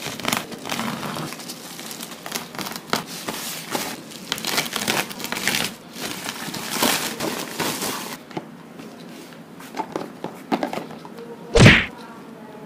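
Plastic courier mailer being slit with a knife, torn open and crinkled by hand, then a few small rustles and clicks. A single loud thump about a second before the end.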